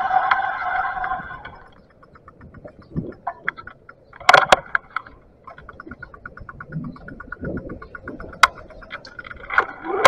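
E-bike's rear freewheel ticking rapidly and evenly while coasting, with a few sharp knocks from bumps. A steady whine is heard in the first second or so and again near the end.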